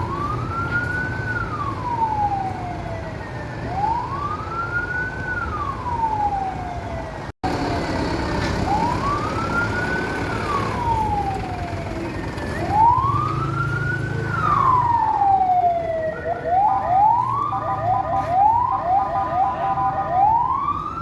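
Fire engine siren sounding in a slow wail, each cycle rising to a high pitch in about a second and sliding back down over the next two to three seconds, repeating about every four seconds over a low engine rumble. About three-quarters of the way through, a run of quick rising whoops breaks in before the wail resumes. There is a brief break in the sound about a third of the way in.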